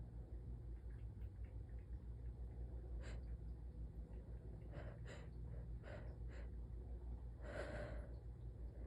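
A woman with a cold taking several short, catching breaths as a sneeze builds, then a longer, louder breathy burst near the end, a half-stifled sneeze or false start. A steady low hum runs underneath.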